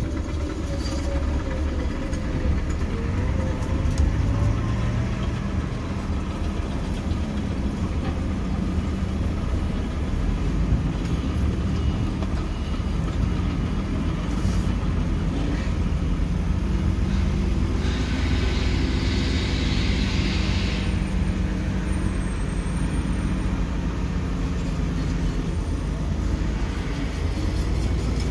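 Diesel engine of a Volvo vehicle running steadily under way, heard from inside its cab, with a low rumble throughout. A hiss lasting a couple of seconds comes about two-thirds of the way through.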